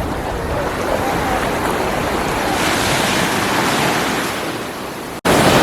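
Surf washing on a beach, a steady rush that swells and eases, with wind buffeting the microphone. Near the end it cuts out for an instant and comes back louder.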